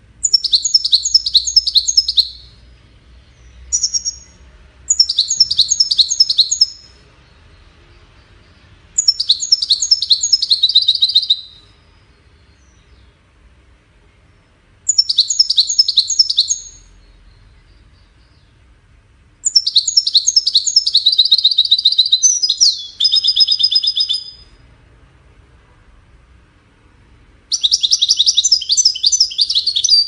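European goldfinch singing: repeated phrases of quick, high twittering notes, each lasting a couple of seconds, with pauses of a few seconds between them.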